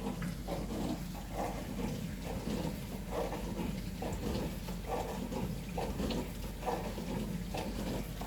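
Dishwasher running its wash cycle: water swishing in repeated pulses about twice a second, over a steady low mains hum.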